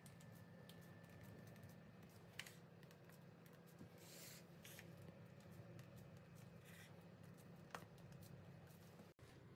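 Near silence: a faint steady low hum, with soft rustles and a couple of small clicks from a plastic piping bag being squeezed to pipe cream.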